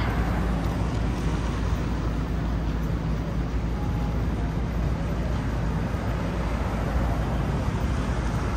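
City street traffic noise: a steady low rumble of passing and idling vehicles.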